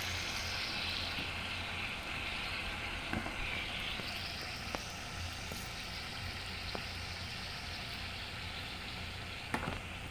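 Self-heating hot pot simmering with a steady hiss, the broth still heated by its heating pack. A few light clicks of chopsticks against the bowl.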